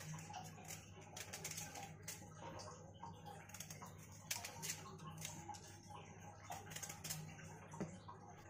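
Knife peeling an elephant foot yam: faint, irregular scraping and clicking strokes of the blade against the tuber's skin, over a low steady hum.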